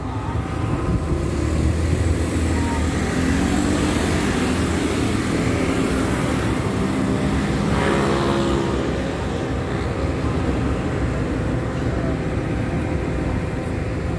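Road traffic crossing a level crossing: scooters and cars driving past, with one louder engine passing close about eight seconds in.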